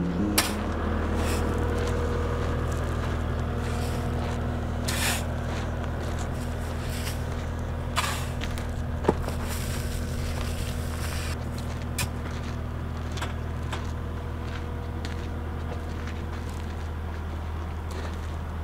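A vehicle engine running steadily at constant speed, with a few sharp knocks and clanks over it.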